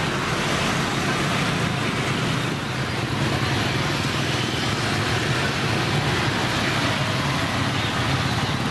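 Steady street traffic noise, mostly motorbike engines running along the road close by.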